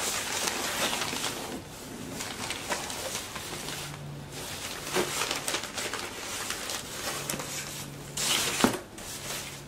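Crumpled packing paper rustling and crinkling as hands dig through a cardboard shipping box, with small knocks against the cardboard. A louder burst of rustling comes near the end and ends in a sharp knock.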